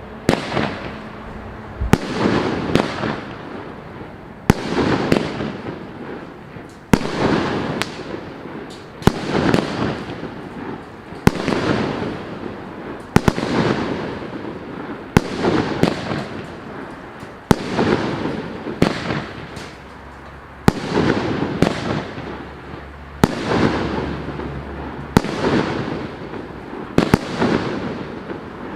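FC115MK multi-shot consumer firework cake firing its shots in sequence: a sharp report every second or two, each followed by a spell of crackling.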